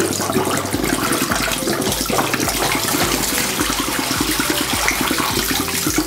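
Water pouring from two upturned plastic bottles into a sink: one swirled into a vortex so it runs out smoothly, the other poured straight and glugging in a regular pulse as air bubbles back in.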